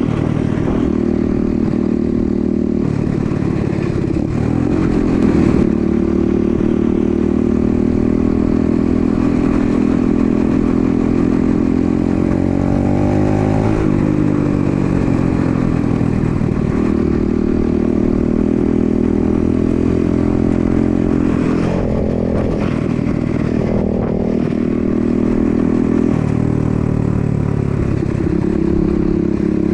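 125cc dirt bike engine running while being ridden, its pitch dipping and climbing several times as the throttle and gears change.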